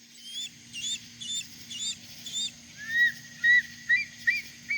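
A bird calling from the trees: a run of short, sharp calls about two a second, at first higher-pitched, then from a little over halfway a lower series that comes faster.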